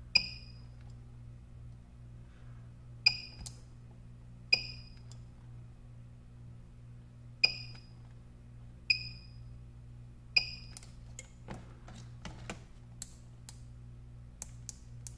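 PCB spot welder firing through hand-held copper needles into 0.15 mm nickel strip: six sharp snaps, each with a short high ring that dies away quickly. Toward the end, a run of lighter clicks as the welded strip is pressed and handled.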